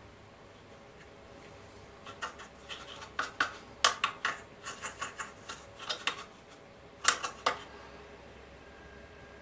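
Paintbrush dabbing and scraping pigment against a plastic scale model and a small pigment pot: a run of small irregular clicks and scratches starting about two seconds in and stopping about two seconds before the end, loudest near four and seven seconds.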